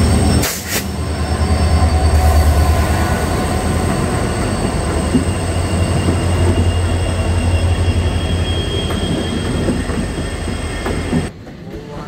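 Train passing close by on the track: a loud, steady low rumble with thin high whining tones over it. There is a sharp knock about half a second in, and the sound drops away suddenly near the end.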